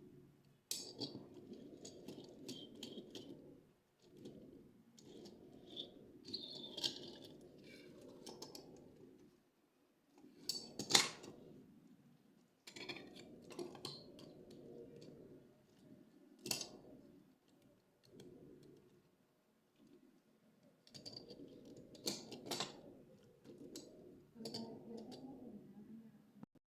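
Toy packaging being handled and opened: irregular rustling and handling noise broken by sharp clicks and snaps, the loudest snap about eleven seconds in.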